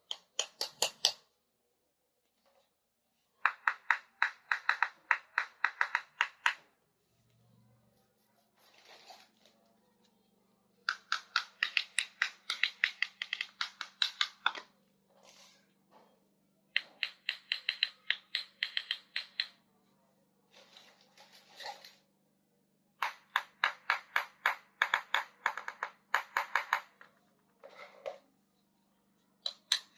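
Scissors cutting through packaging in runs of quick snips, each run lasting two to four seconds with short pauses between. A faint steady hum comes in about seven seconds in.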